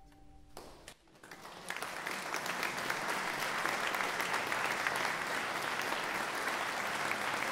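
The ensemble's final held note stops about half a second in. About a second in, a small audience starts clapping, which builds within a second into steady applause.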